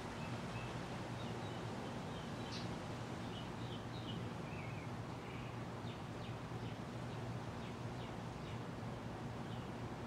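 1980s Moss Heirloom Olympus ceiling fan running steadily: a low motor hum under the even rush of its spinning blades. Faint bird chirps come and go in the background.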